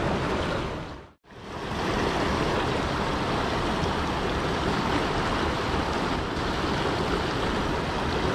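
Steady rush of flowing river water, which fades out briefly about a second in and then comes back.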